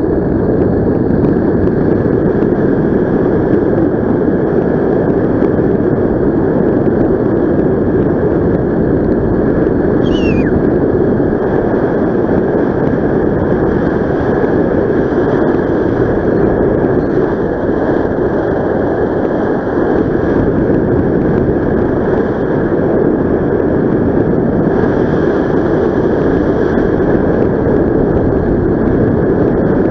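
Steady rush of airflow over the camera microphone in paraglider flight. A brief high whistle falls in pitch about ten seconds in.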